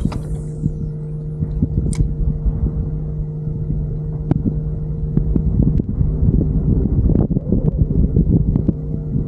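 Kayak's motor humming steadily over a low rumble; the hum cuts off near the end.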